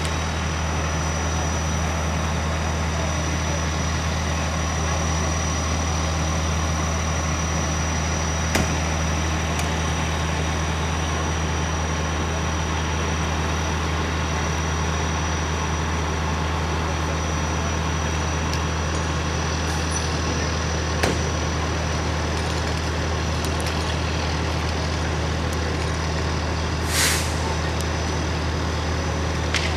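Fire truck engine idling with a steady low drone. Near the end comes a short hiss of air, like an air brake releasing.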